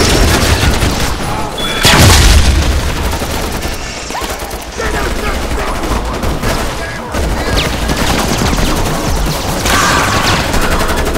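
Rifle fire indoors: many rapid shots overlapping in a continuous volley, loudest about two seconds in, with a brief lull around four seconds.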